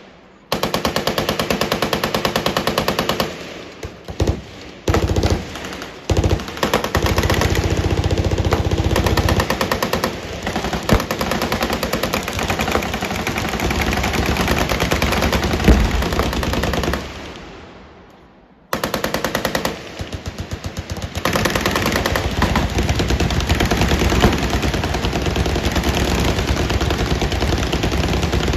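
Machine guns firing long strings of rapid automatic fire, the shots running together. The firing stops briefly a few seconds in, then halts for about two seconds around two-thirds of the way through before starting again.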